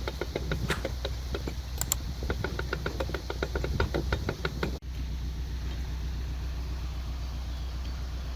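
A narrowboat's engine running steadily. Over the first half there is a fast, even ticking, several ticks a second; it stops abruptly at a break, and the engine carries on alone.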